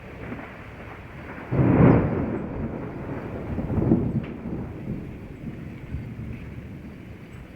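A thunderclap: a sudden loud crack about one and a half seconds in rolls into rumbling thunder that swells again around four seconds and then fades. Under it runs a steady hiss of rain.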